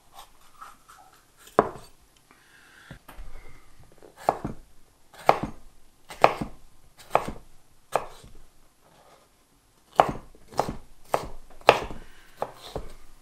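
Kitchen knife chopping a red bell pepper on a cutting board: sharp separate knocks, about one a second at first, then quicker, about two a second, near the end.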